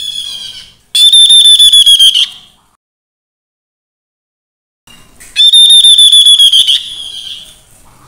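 Tepus lurik babbler calling: two loud, high whistled phrases about four seconds apart, each about a second long and rapidly stuttering, with softer notes leading in and trailing off.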